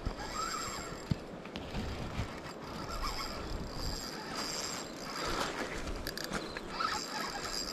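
Shimano Twinpower spinning reel working while a hooked trout pulls against the line, over the steady rush of the river current.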